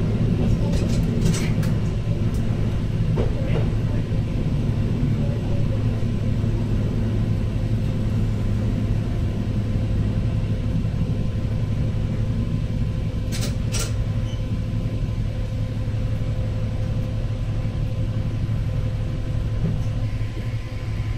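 Diesel railcar (JR Central KiHa 11) running along the line, heard from inside: a steady engine drone and wheel rumble. There are a few sharp clicks about a second in and again a dozen seconds later.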